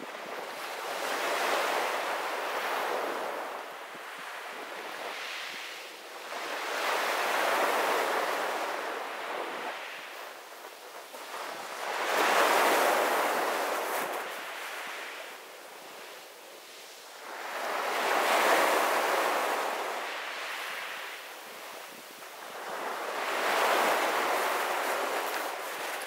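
Small sea waves breaking and washing up a pebble beach, in five slow surges that swell and fade about every five to six seconds.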